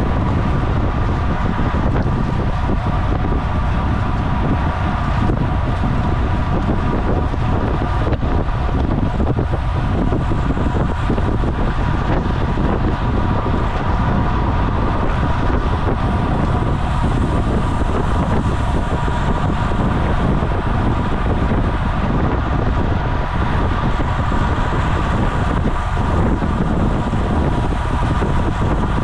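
Steady rush of wind over the microphone and road noise from a racing bicycle riding at speed, with a faint steady whine above it.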